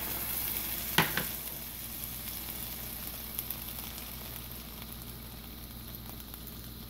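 Onions and garlic sizzling in a hot pan with a little water, the hiss easing off slowly, with one sharp knock about a second in.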